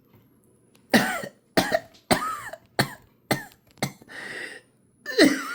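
A person coughing hard, six harsh coughs about half a second apart, then a raspy indrawn breath and another cough near the end. It sounds really awful, the cough of someone coming down with an illness.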